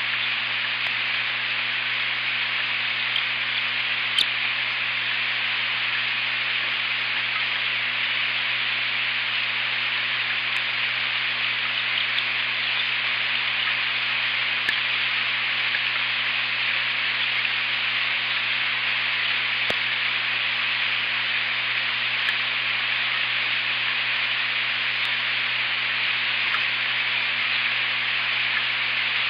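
Steady hiss of rain falling on the nest camera and nest, with a few sharp drop ticks and a low steady hum underneath.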